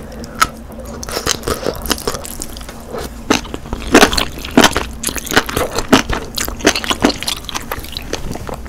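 Close-miked eating sounds: a mouthful of enoki mushrooms and noodles from spicy budae-jjigae (Korean army stew) being bitten and chewed, with irregular wet, crunchy clicks, the loudest a few seconds in.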